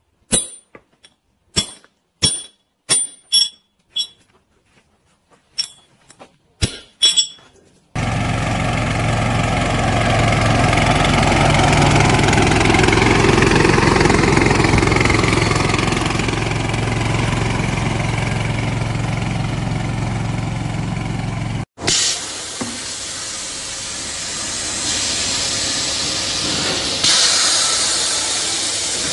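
A hammer striking a steel chisel on a stone block, a series of sharp strikes, followed after about eight seconds by a walk-behind mower's small engine running steadily as it cuts through tall weeds. Near the end a quieter steady hiss of machinery takes over.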